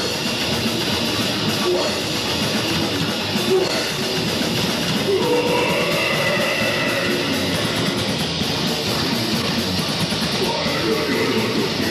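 Live rock band playing loud heavy music: electric guitar over a full drum kit.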